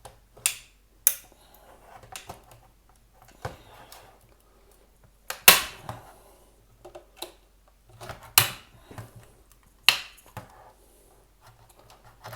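Plastic case of a wireless access point being pried apart with a tool: about six sharp snaps and clacks at uneven intervals, the loudest about halfway, with quieter scraping and fumbling of plastic in between.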